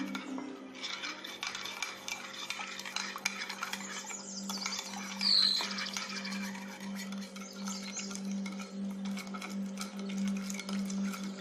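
A spoon stirring and scraping in a mixing bowl, with many small clinks, over a steady low hum. A short falling chirp sounds once about halfway through.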